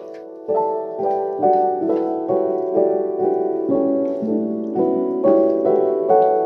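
Background music: a keyboard melody of struck notes, about two a second, each fading after it sounds.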